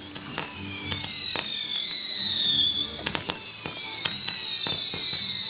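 Fireworks display: a rapid run of sharp bangs and crackles, with several high whistles gliding down in pitch.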